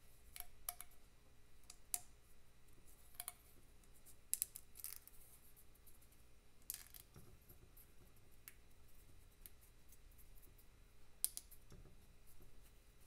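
Faint, scattered light clicks and clinks of small metal parts being handled as a brass carburettor adapter and thin paper gasket are fitted over the inlet-port studs of a Vincent cylinder head.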